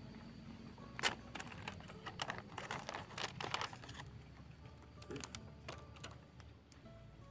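Irregular runs of crisp crackles and clicks close to the microphone, densest from about one to four seconds in, with another short run about five seconds in.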